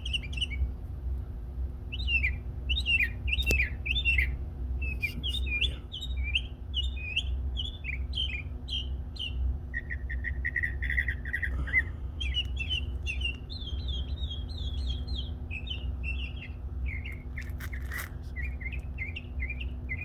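Songbirds singing a continuous string of quick, varied chirps and short phrases, with a run of lower, evenly repeated notes about ten seconds in, over a steady low rumble.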